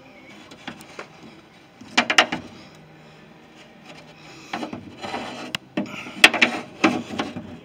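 Irregular knocks, clinks and scrapes of a tool working through an access hole in the inner sheet-metal panel of a van's rear cargo door. There is a short cluster about two seconds in and a busier run of knocks and rubbing in the second half.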